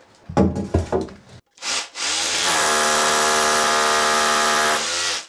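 Makita SDS drill boring into the plastered masonry wall: a few knocks first, a short burst, then about three seconds of steady drilling that stops suddenly.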